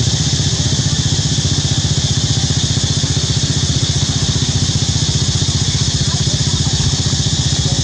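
A small engine running steadily at idle: a rapid, even low pulsing under a constant high hiss.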